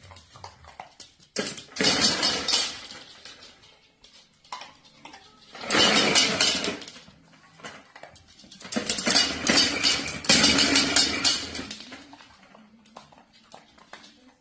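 Dry kibble rattling inside a plastic treat-dispensing feeder as a dog pushes it about on a hard floor, in three bouts with pauses between.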